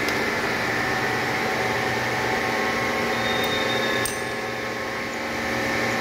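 Milling machine running steadily, its end mill cutting a bolt head, with a steady hum and several steady whining tones. About four seconds in there is a click, and the sound is a little quieter for a second or so after it.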